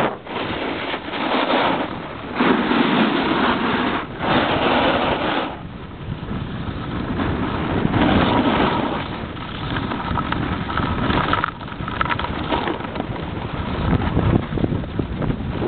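Wind buffeting a helmet-mounted camera's microphone as a skier descends at speed, mixed with the hiss of skis on packed snow. The noise swells and drops every second or two as the skier turns.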